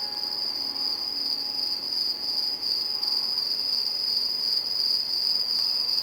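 Crickets chirping in one steady, high, fluttering trill.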